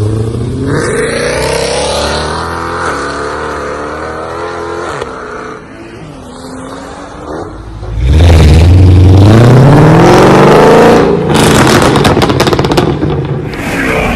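Mercedes-Benz C63 AMG's naturally aspirated V8 through an iPE aftermarket exhaust, revving up and then easing off. After a quieter lull it revs hard again and cuts off abruptly into a rapid string of exhaust crackles and pops, then revs briefly once more near the end.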